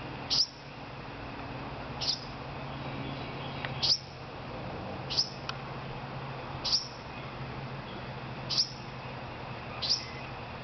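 Fallen baby bird, taken for a young wren, giving short high chirps that drop in pitch, seven in all, about one every one and a half seconds: calling for its parent.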